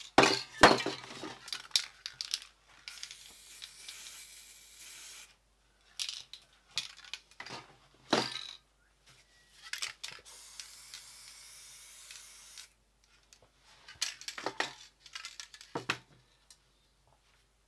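Paint-work handling sounds: a magazine page crinkling and spray cans and tools knocking and clinking, in separate bursts every second or two. Twice a faint steady hiss runs for a couple of seconds between them.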